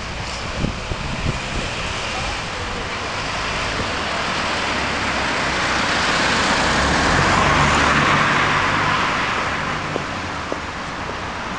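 Street traffic: a vehicle passes along the road, its tyre and engine noise swelling to a peak about seven to eight seconds in and then fading.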